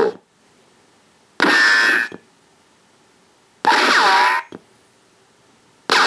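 Laser tag sound-effect board playing its stored sound bites through a small speaker one after another, about two seconds apart, as it cycles through them in sample-select mode with the button held. Three short effects are heard, the first clips in its cycle being bullet ricochets with pitch that falls, the third starting near the end.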